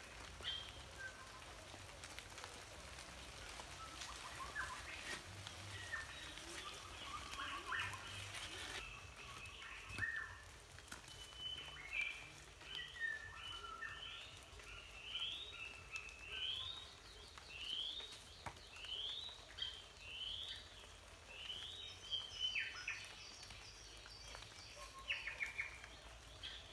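Birds calling in woodland: scattered chirps, then a long run of about ten short rising whistled notes, roughly one a second, through the middle. A couple of faint sharp knocks come in between.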